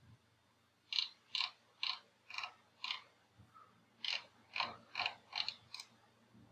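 A series of small plastic clicks from operating the computer, about two a second, in two runs with a short pause between them.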